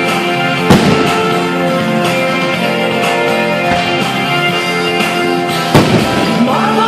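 Show music with guitar playing over loudspeakers, broken by firework bursts: two loud bangs, one just under a second in and one near the end, with a few fainter pops between.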